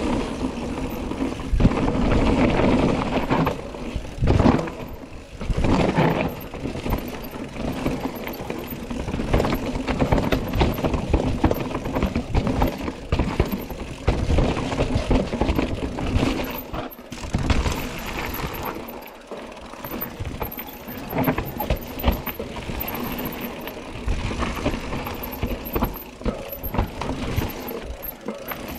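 Mountain bike ridden fast down a downhill trail: tyres running over dirt and rocks, with the chain and bike rattling and clattering over the bumps.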